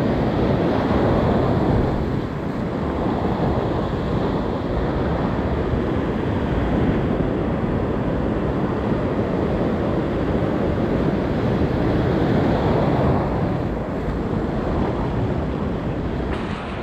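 Surf washing onto a beach, a steady rush of waves that swells and eases every few seconds, with wind on the microphone.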